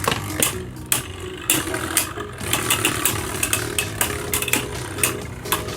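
Spinning Beyblade Burst tops whirring in a plastic stadium, with repeated sharp clicks as they strike each other and the stadium walls.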